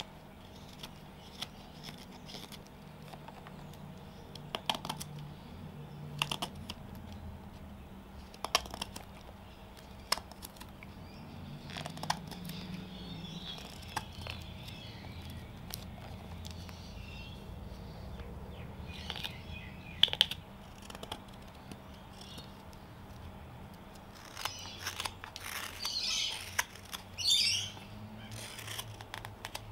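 Steel hook knife slicing shavings out of the bowl of a spalted birch spoon: short crisp cuts and scrapes every second or two. Birds chirp now and then, most clearly near the end.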